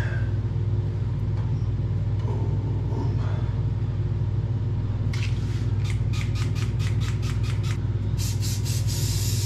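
Hairspray being sprayed onto hair: a run of short spritzes, about four a second, then a long continuous hiss of spray starting about eight seconds in. A steady low hum sits underneath.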